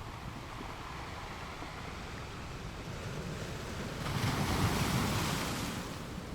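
Sea waves washing, with wind on the microphone. A louder surge of water rises about four seconds in and falls away near the end.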